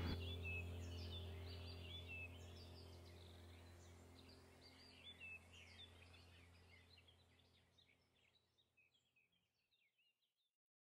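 Faint small birds chirping over a low steady hum, the whole background fading out to near silence over about seven seconds.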